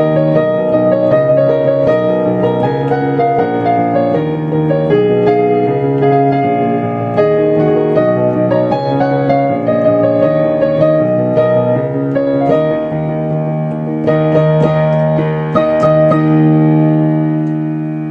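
Solo piano playing the closing bars of a pop song arrangement, with chords changing every half second or so. About sixteen and a half seconds in it lands on a final chord that is held and rings out.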